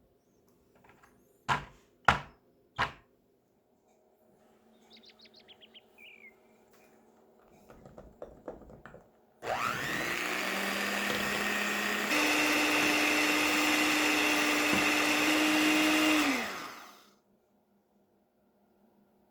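Electric blender motor spinning up and running for about seven seconds, stepping up in speed partway through, then winding down, most likely puréeing raspberries with sugar. Before it, three sharp knocks.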